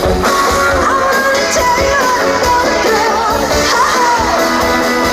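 Background pop-rock music: a song with a sung melody over guitar and a steady band accompaniment.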